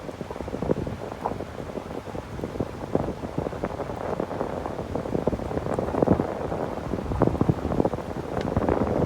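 Wind buffeting the microphone in irregular gusts, growing louder near the end.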